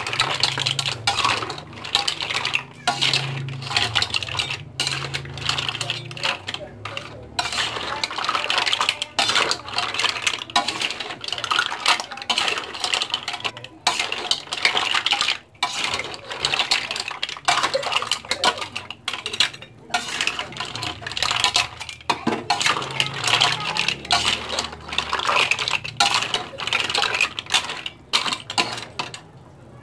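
Green mussel shells clattering and clicking against a metal pan and each other as they are stirred during cooking, a dense run of rattles.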